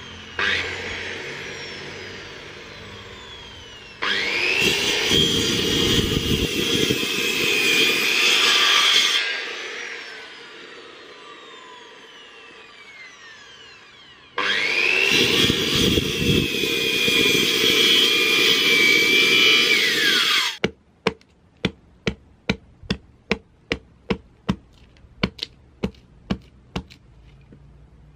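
Handheld electric circular saw cutting through a block of coconut wood in two passes of about five seconds each, its blade whining down in falling pitch between them. The saw stops abruptly about two-thirds through, followed by a run of sharp chops, about two a second, from a machete (golok) striking the block.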